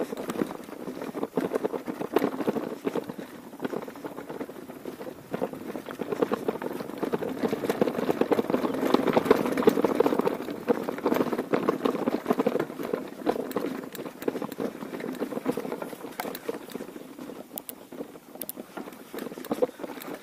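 Mountain bike rolling down a cobbled stone track, its tyres and frame giving a dense, irregular rattle over the stones, loudest about halfway through.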